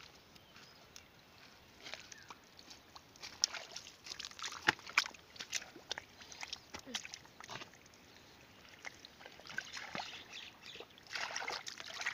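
Hands squelching and scooping through wet mud and shallow muddy water, with irregular wet splats, sloshes and drips that thicken about two seconds in and again near the end.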